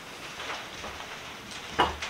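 Quiet room hiss, then a single knock near the end as the wooden vise screw is set down.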